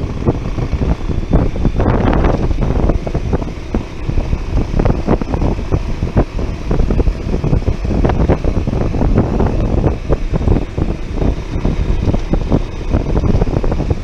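Wind buffeting the microphone of a moving Bajaj Pulsar 150 motorcycle, a loud, uneven rushing, with the bike's single-cylinder engine running underneath.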